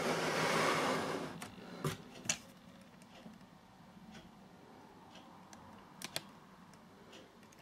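Quiet handling noise: a soft rustling hiss for about the first second and a half, then a few scattered light clicks, two near two seconds in and two near six seconds in, over faint room tone.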